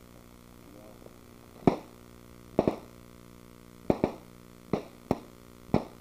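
A series of sharp bangs, about eight in six seconds, irregularly spaced with some in quick pairs, from effects set off for a staged battle scene on a film set.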